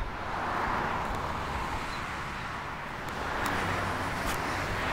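Road traffic passing on the street: a car's tyre and engine noise swelling and easing, then building again near the end as another vehicle approaches.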